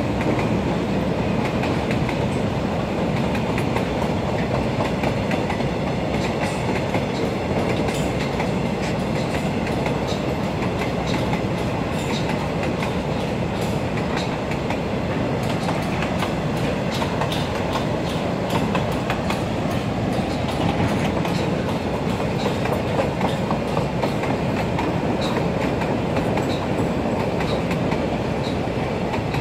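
Container freight train's wagons rolling steadily past, a continuous rumble with the wheels clicking on the track.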